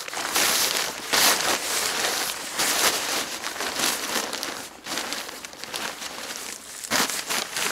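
A groundsheet's fabric crinkling and rustling as it is bunched up and gathered in the hands.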